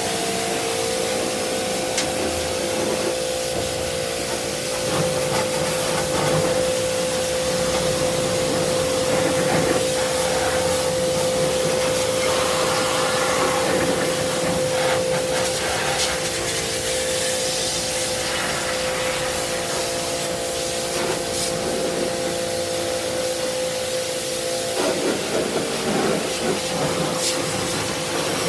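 A small pressure washer running steadily: its motor whines at a constant pitch under a continuous hiss of spraying water, with some irregular scrubbing noise.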